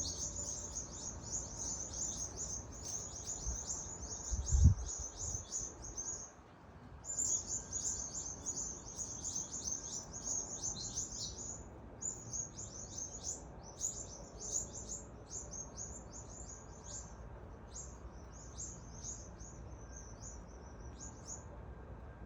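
Small birds chirping loudly in a rapid, dense chatter of high chirps that thins out and grows sparser after about 12 s, stopping near the end; the uploader puts the outburst down to a rat chasing them. A short low thump about four and a half seconds in.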